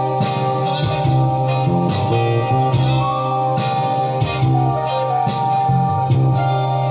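Recorded Brazilian evangelical pop band music playing an instrumental passage: guitar over steady bass and regular drum beats, with no singing.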